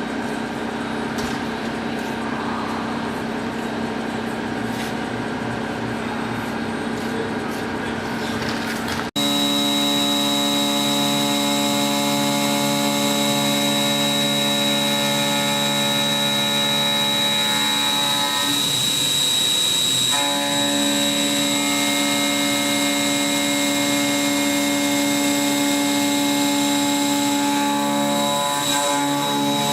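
Milling spindle of a Kinetic K4000 CNC table running as it mills, a steady machine whine made of several held tones. About nine seconds in the sound cuts abruptly to a louder, more whining passage.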